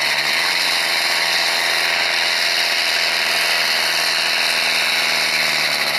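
Valmet farm tractor's diesel engine running flat out under heavy load as it drags a weight-transfer pulling sled, holding a steady pitch.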